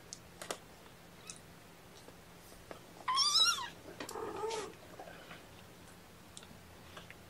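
A young kitten, about three and a half weeks old, mewing: one loud, high, wavering mew about three seconds in, followed by a softer, lower cry. A few faint taps come before it.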